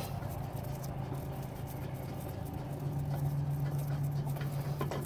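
Faint scratching and light clicks as a gloved hand works a brake caliper guide bolt loose behind the steering knuckle, over a steady low hum.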